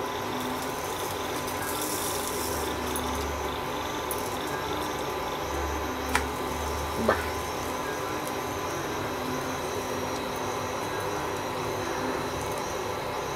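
Steady hiss of a chocolate pancake cooking on a nonstick pan, with two short clicks of a silicone spatula against the pan about six and seven seconds in as the pancake is flipped.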